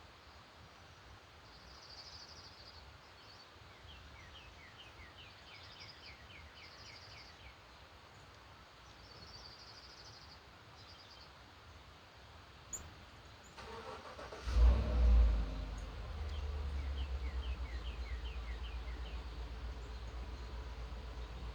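Songbirds calling, with short high warbles and a quick series of chirps. About two-thirds of the way through, after a click, a car engine starts with a loud surge and settles into a steady low idle.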